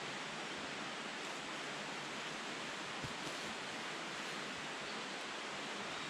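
Faint, steady rush of flowing water in a rocky stream gorge, with a few soft clicks and rustles.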